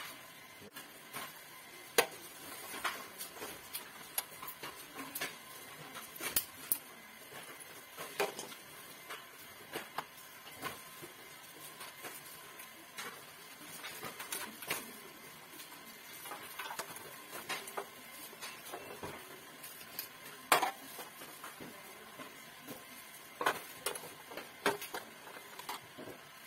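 Irregular metallic clicks and knocks from hands working on the parts of an opened built-in gas hob: its sheet-metal tray, gas valves and ignition wiring. The sharpest knocks come about 2 seconds in and again near 20 seconds.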